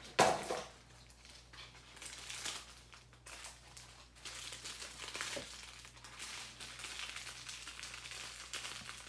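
A single sharp knock just after the start, then the steady crinkling of small plastic bags of diamond painting drills being handled.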